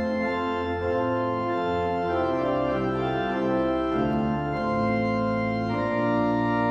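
Organ playing slow, sustained chords, each held for a second or two before moving to the next.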